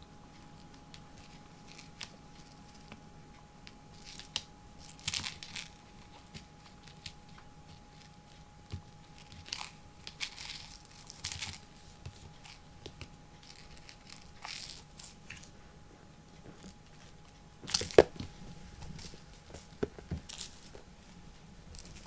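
Scattered rustling, crinkling and scratching with small clicks, and one sharp knock about 18 seconds in; a faint steady hum stops just before the knock.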